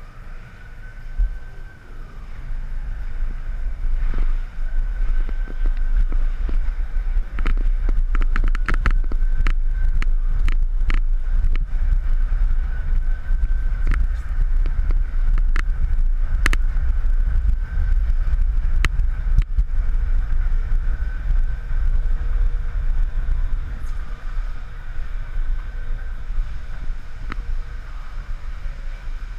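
Amusement ride running, heard from on board: a steady low rumble with wind buffeting the microphone that grows louder over the first few seconds, a faint steady whine, and a run of sharp clicks and clacks through the middle.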